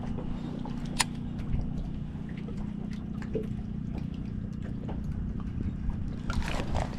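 Steady low hum on a fishing boat, with light clicks and knocks scattered through it and one sharper knock about a second in.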